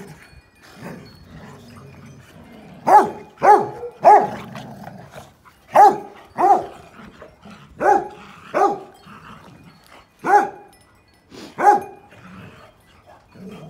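A dog barking during rough play with other dogs: about nine sharp barks, mostly in pairs about half a second apart, starting about three seconds in, with low growling between some of them.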